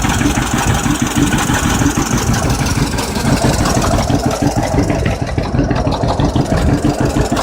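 1951 John Deere B's two-cylinder tractor engine idling steadily with a fast, even exhaust beat.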